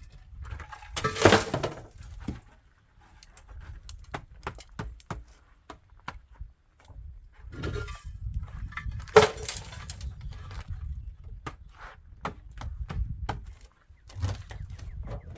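Clatter of hard objects being handled: a run of knocks and clinks, with two louder crashes about a second in and about nine seconds in, over a low rumble.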